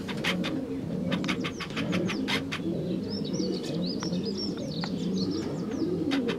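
Racing pigeon hens cooing steadily in their nest boxes, with sharp taps and clicks throughout. A small bird chirps in quick high notes for a couple of seconds in the middle.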